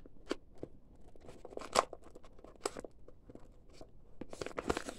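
A woven plastic mailing bag crinkling and rustling as hands handle it, in scattered sharp crackles, the loudest a little under two seconds in, thickening into denser rustling near the end.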